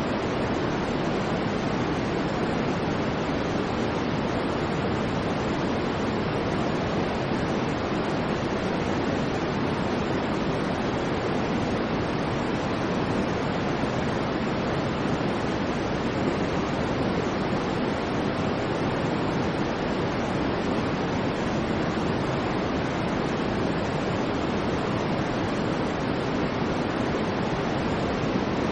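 Steady white noise: an even, unchanging hiss with no swells or breaks, fuller in the low and middle range than in the treble.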